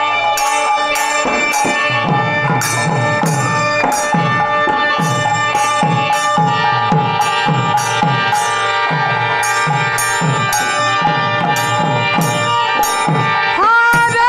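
Kirtan percussion: khol clay barrel drums beaten in a steady rhythm of about two to three strokes a second, the bass strokes sliding down in pitch, with kartal hand cymbals clashing on the beat over a held tone. Near the end a high note glides up and holds, and the music gets louder.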